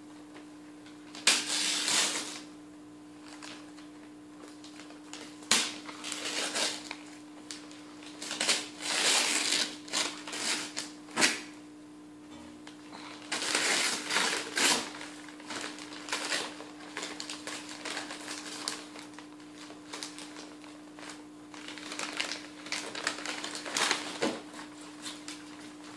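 Shiny silver gift wrap being torn and crinkled by hand: irregular bursts of ripping and crackling, over a steady low hum.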